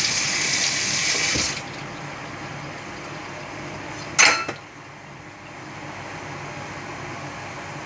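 Kitchen tap running as fruit is rinsed under it, shut off abruptly about one and a half seconds in. A few seconds later comes one short, sharp clatter, the loudest moment.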